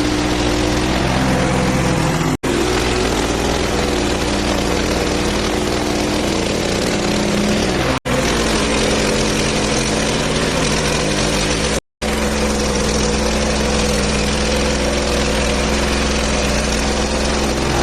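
The engine of a Hud-Son HFE 30 portable band sawmill running steadily while the band blade cuts through a cherry burl log. The sound cuts off abruptly for an instant three times, with the engine's pitch shifting slightly after each break.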